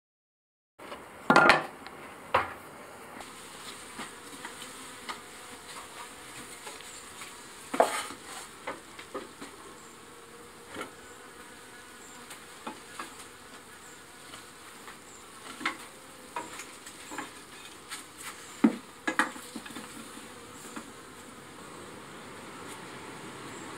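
Honeybees buzzing around an opened hive, with scattered wooden knocks and clatters as the hive's frames and the wooden battens of the hive cloths are handled. The loudest knocks come about a second in and a few more follow at irregular intervals.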